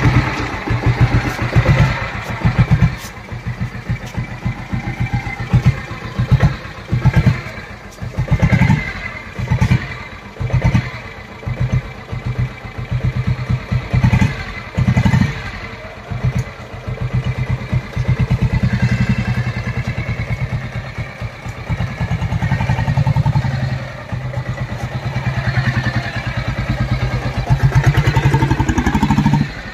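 Royal Enfield Bullet motorcycle converted to a diesel engine, running with an even, distinct beat of firing strokes just after starting. The throttle is blipped in repeated surges as the bike pulls away and rides off.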